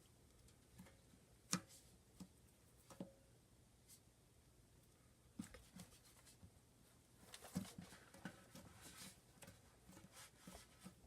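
Faint scattered clicks and small sticky pops of slime being poked and handled by hand, with a busier run of crackling pokes in the second half.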